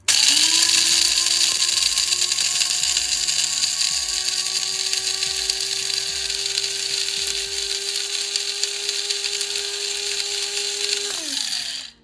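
Electric blade coffee grinder grinding whole coffee beans. Its motor runs with a steady whine that climbs in pitch over the first few seconds as the beans break down to powder, then spins down with a falling pitch about a second before the end.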